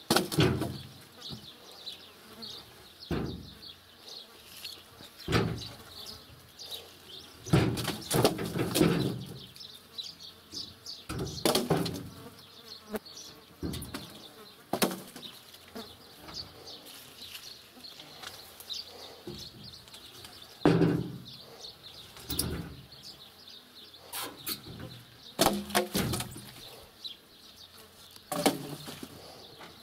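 Birch logs thrown down from a truck bed thudding and clattering onto the ground and onto each other, about a dozen irregular drops, some coming in quick clusters.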